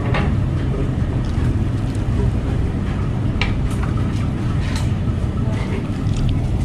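Restaurant background noise: a steady low rumble with a few sharp clinks of tableware and faint voices.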